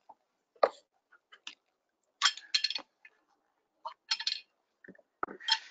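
Short metallic clinks and knocks of terminal parts being handled as the lower boom arm section is lifted out of its hard transit case: scattered clicks, with a quick cluster about two seconds in and another about four seconds in.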